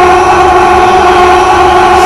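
A wall of many overlapping looped clips of Carl Wheezer going 'ahhh', merged into one loud, steady, distorted vocal drone that sounds like a sustained horn chord.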